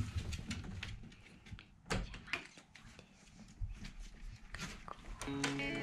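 Quiet scattered clicks and taps of footsteps: a person and two small dogs moving across the floor. Background music with guitar comes in near the end.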